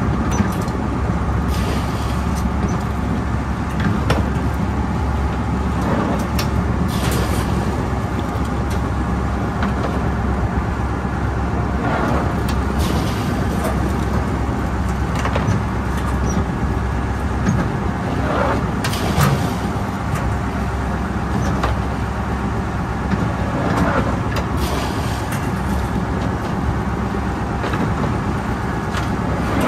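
A crab work boat's engine runs steadily while the boat is under way, with water rushing along the hull. Now and then a clank or rattle comes from wire crab pots being handled at the rail.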